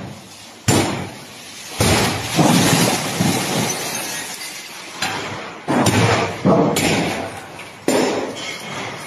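Waste glass crashing and shattering in a series of loud sudden crashes, about five, each trailing off in a rattle of breaking shards.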